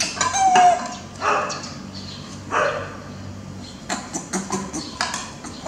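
Baby macaque giving a few short calls, one with a briefly held pitch at the start. From about four seconds in there are sharp clicks and knocks as a plate is handled on the table.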